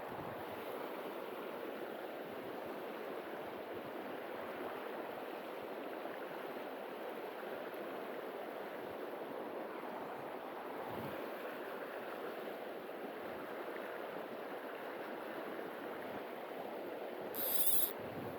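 Steady rush of river water flowing. Near the end comes a brief, loud, high-pitched hiss.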